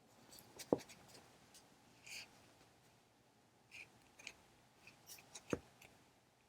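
Faint, scattered clicks of knitting needles and soft rustling of yarn as stitches are bound off, with two sharper needle clicks, one near the start and one near the end.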